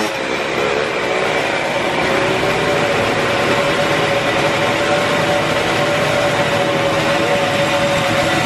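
Small two-stroke Simson cross bike engine running steadily at a fast idle, its pitch holding nearly level.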